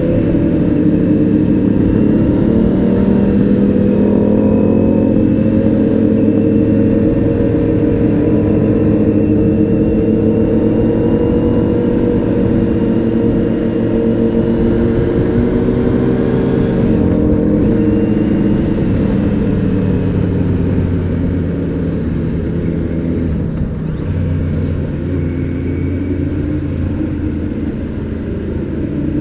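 Kawasaki Z900's inline-four engine heard from the rider's seat, pulling hard with its pitch sliding up and down as the bike accelerates. After about twenty seconds it settles into a lower, steadier and slightly quieter note.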